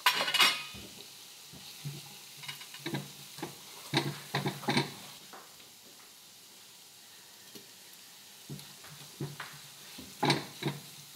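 Spatula scraping and knocking in a frying pan as an onion-tomato masala is stirred, in bursts of strokes with a lull in the middle, over a faint steady sizzle from the pan.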